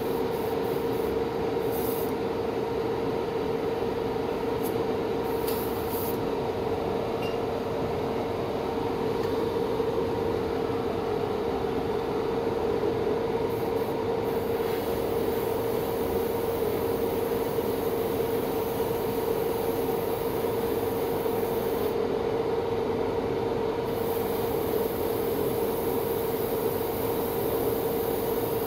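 Small electric motor running steadily: a constant hum over a noisy hiss, unchanged throughout.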